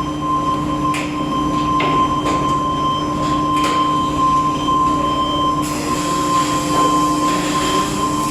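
Steady industrial machinery drone with a constant high whine, scattered clicks and knocks, and a rise in hiss a little past the middle.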